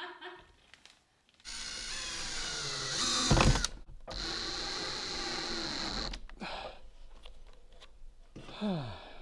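Cordless drill run twice against the cabin wall, fastening window flashing: two runs of about two seconds each, the first loudest near its end, the second a steady whine.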